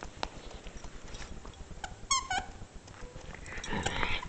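Jack Russell terrier playing rough with a toy: a run of small clicks and scuffles, two short high squeaks about two seconds in, and a rough growl near the end.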